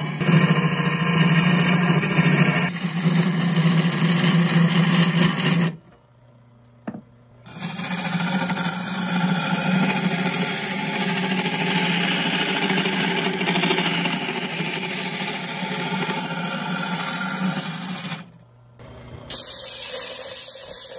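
Wood lathe spinning a spalted oak cup blank while a hand-held turning tool cuts inside it, a steady scraping cut over the lathe's hum, dropping out twice briefly. Near the end, sandpaper held against the spinning wood gives a higher, hissing rub.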